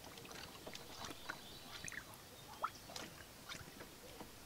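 Faint scattered clicks, taps and a few short squeaks as hands work at a rubber coolant hose in a Mercedes W123 engine bay.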